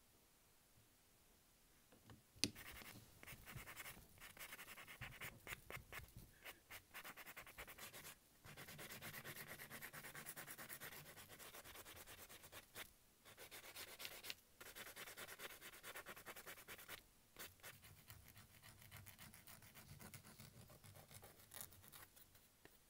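Nail file rasping against natural fingernails in back-and-forth strokes. It starts about two seconds in with a sharp click and carries on through the rest, with a few short pauses and one longer unbroken stretch in the middle.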